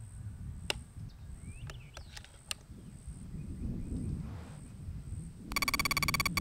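Outdoor ambience: a low rumble, a few sharp clicks and small chirps. Near the end comes the loudest sound, a buzzing tone that pulses rapidly for just over a second.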